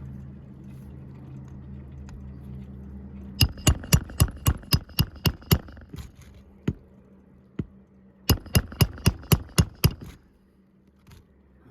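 Two quick runs of hammer blows on metal, about four a second, each strike ringing, with a couple of single blows between the runs, during work on the nails of a shingle roof. A low steady hum sits underneath and fades near the end.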